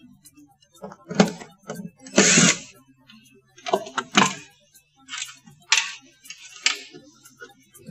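Screws being undone and the plastic panels of a water dispenser handled: an irregular run of short scrapes and clicks, about eight in all, with brief pauses between them.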